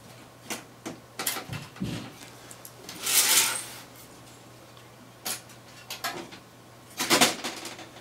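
Handling noise from a steel PC case with a motherboard being seated in it: scattered clicks and light metal knocks, with two longer scraping rustles about three seconds in and again near the end, over a faint steady hum.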